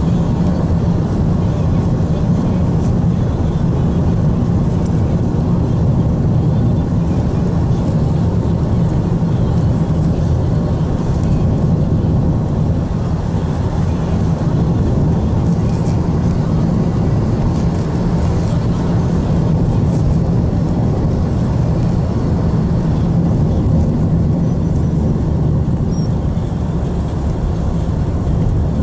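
Car driving along at a steady speed, heard from inside the cabin: a constant low hum of engine and tyre road noise.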